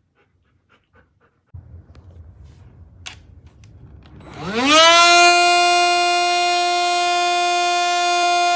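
Faint clicks and a low hum, then a click, then about four and a half seconds in a cordless handheld vacuum's motor spins up with a quick rising whine and settles into a steady high-pitched whine.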